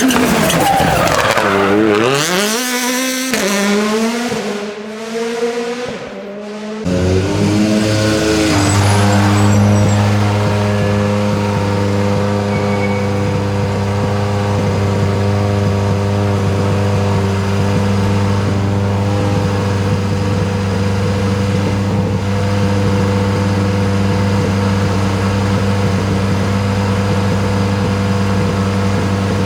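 A car engine revving, its pitch rising and falling sharply through gear changes for about seven seconds. Then a steady low hum holds at one pitch for the rest.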